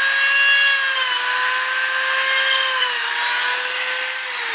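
Single-speed Dremel rotary tool running with a small drill bit, a steady high whine that dips slightly in pitch about a second in and again near three seconds as the bit is pushed through the strap leather to bore holes for metal spots. Near the end it starts to wind down as it is switched off.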